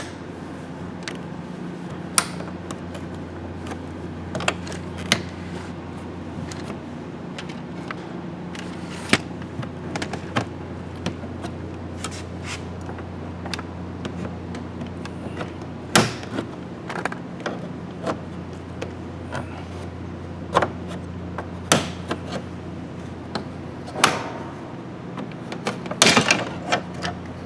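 Scattered sharp plastic clicks and taps as a pry tool works at the clips holding the interior door handle cover on a 1998 Chevy GMT-400 truck door, with a quick cluster of clicks near the end, over a steady low hum.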